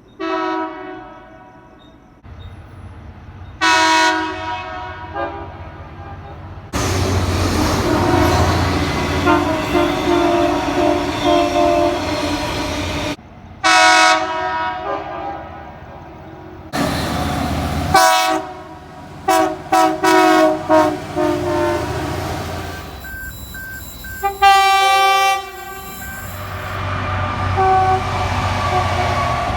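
Locomotive air horns sounding multi-note chords in a string of separate blasts, some short and some held for several seconds. Each is an edited clip that cuts off abruptly, and the low rumble of a moving train sits under some of them.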